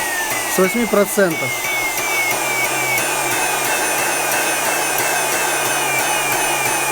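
Vacuum-cleaner motor running on a pulsed supply interrupted three times a second, at an 8% pulse duration: a steady whirring hum with a short falling whine that pulses about three times a second.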